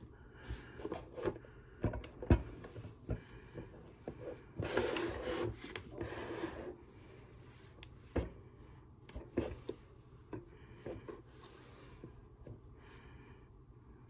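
A disinfecting wipe rubbed over the glossy body of an antique-style rotary phone, with a longer stretch of scrubbing about five seconds in. Scattered sharp knocks and clicks come from the phone being handled.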